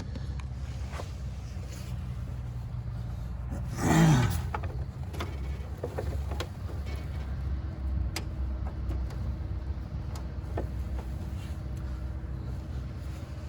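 A steady low rumble with a few light clicks, and a vehicle swelling louder about four seconds in, its pitch falling as it passes.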